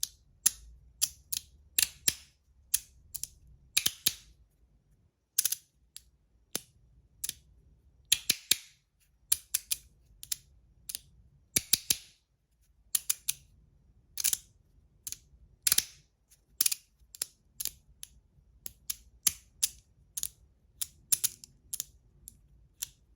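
3D-printed magnetic fidget slider being worked back and forth, its magnets snapping the pieces into place with sharp clicks, irregularly a couple of times a second, some in quick pairs.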